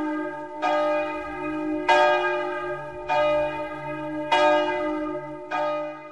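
A single church bell tolling, struck five times about a second and a quarter apart, each stroke ringing on and overlapping the next.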